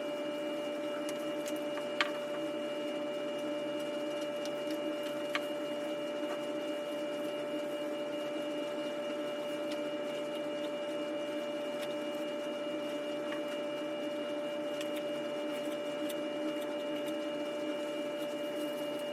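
Small electric motor of a power tool running steadily at one speed, an even whine with a few faint clicks over it.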